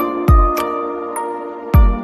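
Background music: held keyboard-like notes over two deep bass hits, one early and one near the end.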